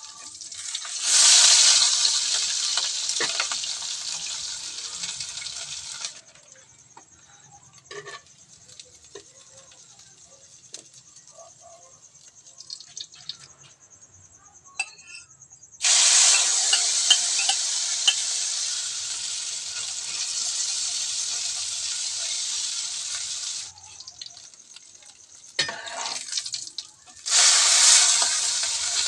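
Tortang alamang (small-shrimp fritters) frying in hot oil: loud sizzling that flares up suddenly and slowly dies down, three times, with quieter stretches between.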